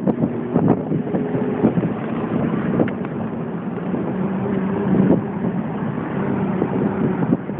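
Cabin sound of a Porsche 911 at highway speed: a steady flat-six engine drone under road and wind noise.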